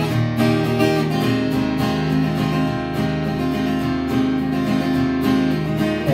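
Acoustic guitar strummed in a steady rhythm of ringing chords, with no singing.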